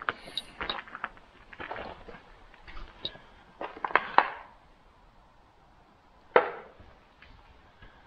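Footsteps crunching and cracking over debris, irregular and fairly faint, with one sharper knock about six seconds in.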